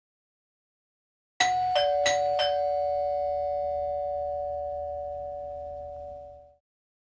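House doorbell chime: four quick two-tone strikes, a higher and a lower note, that ring on and slowly fade away.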